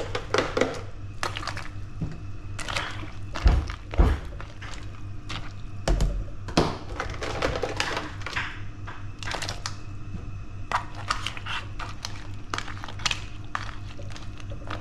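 Kitchen handling sounds around a pot of seafood boil on a gas stove. There are scattered clicks and knocks, with a few heavy low thumps at about three and a half, four and six seconds in, all over a steady low hum. Near the end, metal tongs are pushed into the pot.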